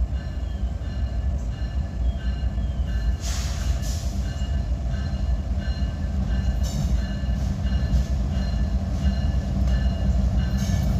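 Diesel-hauled auto rack freight train pulling slowly out of a siding: a steady low engine rumble with faint steady high tones, and a few short sharp noises as it takes up slack in the cars.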